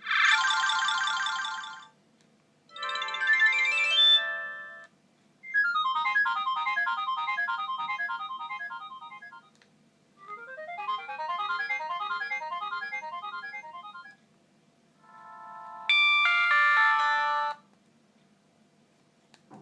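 Siemens MC60 mobile phone's polyphonic ringtones played one after another, five short melodies each cut off after one to four seconds, with brief pauses between them.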